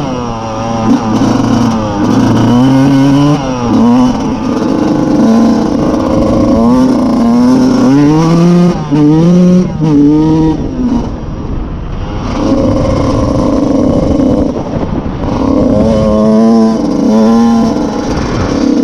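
1996 Honda CR125 two-stroke motocross engine running under load, its pitch climbing and dropping again and again as the throttle is worked and gears are changed, with a steadier stretch in the middle.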